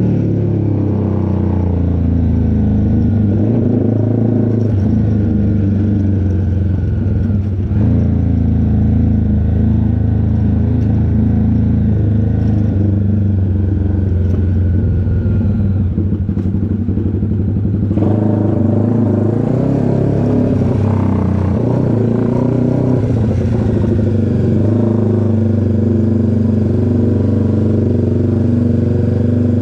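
Honda CBX 250 Twister's single-cylinder four-stroke engine, bored out to 79 mm, idling steadily through a tuned exhaust with a strong, deep rumble.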